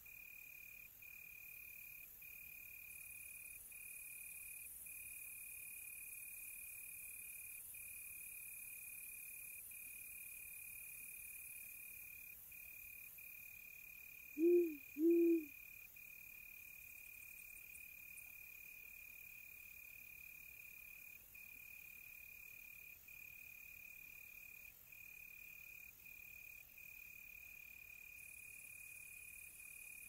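Crickets trilling steadily, a continuous high-pitched tone with brief breaks, while an owl hoots twice in quick succession about halfway through; the low hoots are the loudest sounds.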